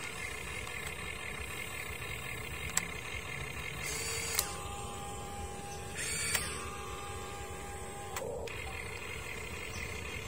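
Huina RC excavator's electric motors and gearboxes whining as it digs, lifts and swings its bucket. The pitch changes several times as different functions start and stop, with a few sharp clicks.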